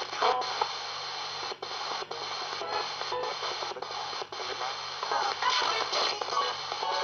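RadioShack 20-125 radio used as a spirit box, sweeping down through the FM band. It plays choppy fragments of broadcast voices and music, cut by brief dropouts every half second or so as it steps from station to station.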